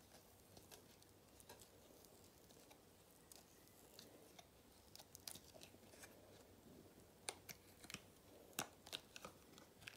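Silicone mold being flexed and peeled off a cured epoxy resin coaster: faint scattered crackles and clicks as the resin releases, coming thicker and sharper in the second half.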